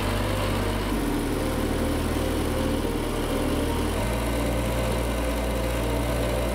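LEGO Technic car's electric drive motors and a treadmill running steadily together, a continuous mechanical hum whose low tone steps in pitch twice.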